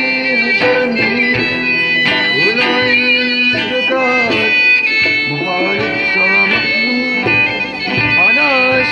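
Music: a melody of held, sliding notes, violin-like, over a fuller instrumental accompaniment.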